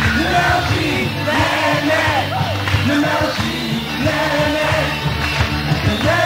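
Rock band playing a song live: a sung vocal over electric guitars, bass guitar and drums.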